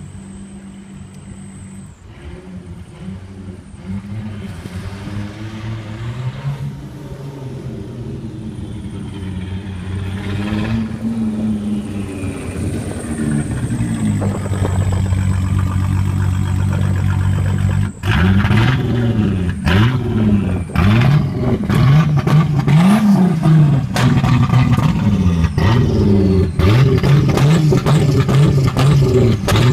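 Turbocharged VR6 engine of a Mk3 VW GTI, running with its exhaust disconnected and a worn second-hand turbo passing oil. It runs steadily with the revs creeping up at first, then a little over halfway through it is revved up and down repeatedly, every second or two.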